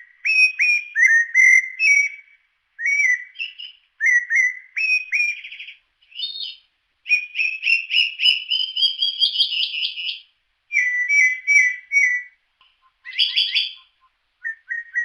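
Bird song: short phrases of clear whistled notes with brief pauses between them, and one longer run of notes climbing in pitch partway through.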